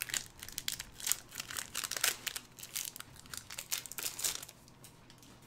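Crinkling of a foil booster-pack wrapper being handled and opened, a dense run of crackles that stops about four and a half seconds in.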